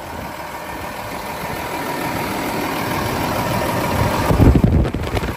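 Cummins ISM 350 inline-six diesel idling steadily in a mixer truck, growing louder as it is approached with the hood open. A louder low rumble comes about four seconds in.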